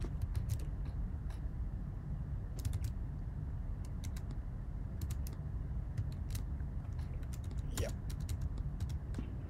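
Typing on a computer keyboard: scattered, irregular key clicks over a low steady hum.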